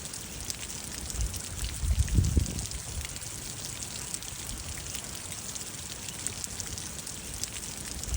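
Steady rain falling, a continuous hiss with a fine patter of individual drops. A low rumble rises about one to two and a half seconds in.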